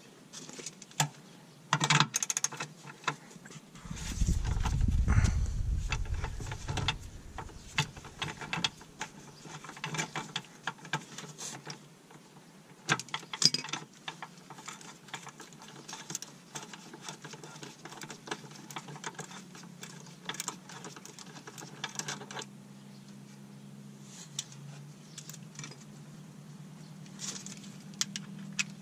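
Hand tools clicking and clinking against metal bolts and fittings under a car, with a ratchet working a bolt. A low rumble comes in for a few seconds near the start, and a faint steady low hum runs through the second half.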